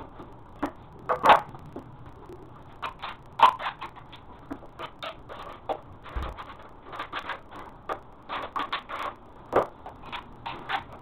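Irregular clicks, taps and knocks of hand work with tools and materials during floor repair, with louder knocks about a second in, at about three and a half seconds, and near the end.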